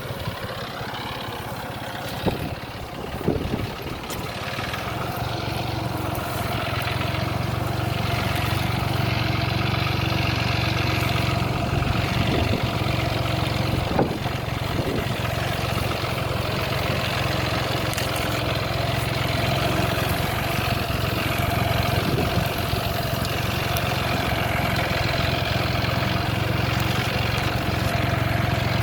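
John Deere 5055 tractor's diesel engine running steadily, growing louder over the first several seconds and then holding. A few sharp knocks sound in the first few seconds and one about halfway.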